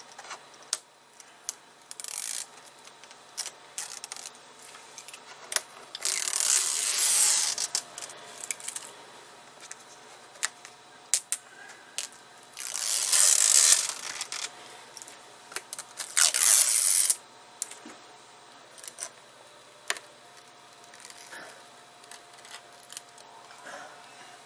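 Adhesive strips for an iMac display being peeled off their backing: four long tearing rasps, with many small clicks and handling noises between them.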